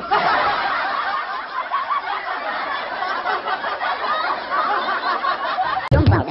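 A crowd laughing, many voices at once in a dense, continuous wash of laughter.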